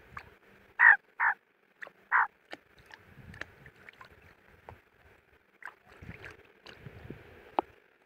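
A young Australian magpie bathing in a shallow puddle, flapping its wings in the water. There are three loud short splashes in the first couple of seconds, then lighter, irregular splashing and flicks.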